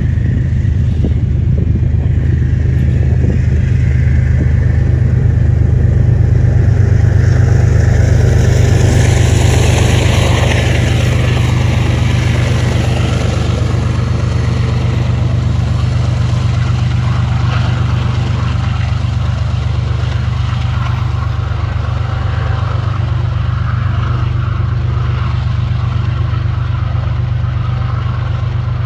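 Diesel freight locomotives running as a tank-car train passes close: a deep, steady engine drone that swells to its loudest about a third of the way through, with a wash of wheel and rail noise at that point, then slowly eases off.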